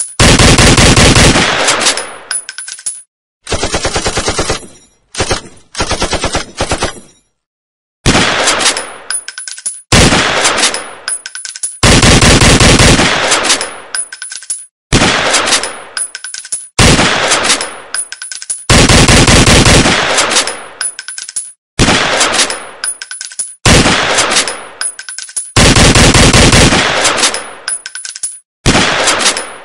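Repeated bursts of rapid automatic gunfire, each a second or two long and trailing off, with short gaps between them.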